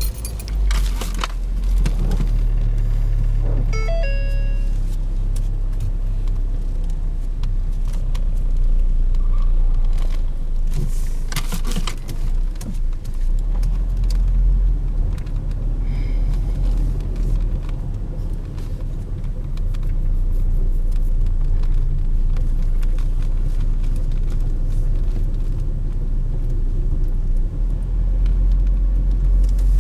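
Steady low rumble of a car in motion, heard from inside the cabin. About four seconds in, a brief run of short tones sounds over it.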